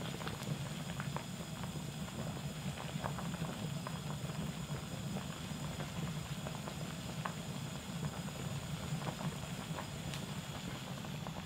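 Pot of tteokguk (rice cake soup with egg and green onion) at a rolling boil: steady bubbling with scattered small pops over a steady low rumble.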